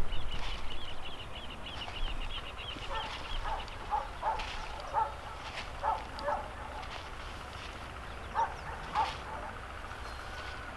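Open-field ambience over light wind rumble: a bird's fast run of repeated chirps fades out in the first two seconds. Then come scattered short barks, a dog at a distance, a few at a time through the middle and two more near the end.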